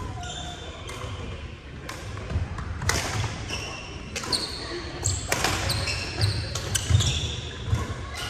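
Badminton rally on a hardwood gym floor: several sharp racket strikes on the shuttlecock, rubber-soled shoes squeaking against the court, and thudding footsteps, with the echo of a large hall.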